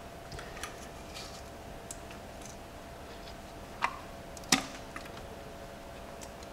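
Scattered light scrapes and clicks of the old exhaust manifold gasket being picked and scraped off a Jeep 4.0L straight-six cylinder head by hand. There is a sharper click a little before four seconds in and the loudest one about four and a half seconds in.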